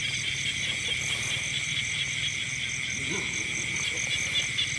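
Night chorus of crickets and other insects in a rice paddy: a steady high trill with fast, evenly pulsed chirping over it, and a low pulsing drone underneath.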